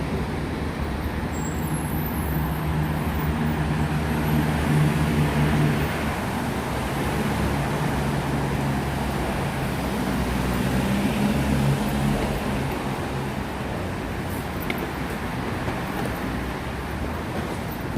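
Motor vehicle running, a steady engine hum with road noise that eases off somewhat in the last few seconds.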